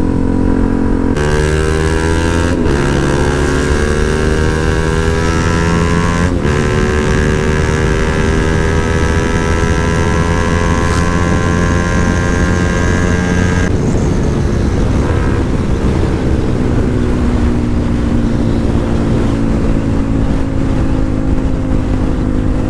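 Motorcycle engine accelerating through the gears: its pitch climbs in each gear, with gear changes about 1, 2.5, 6 and 14 seconds in, after which it holds a fairly steady cruising note.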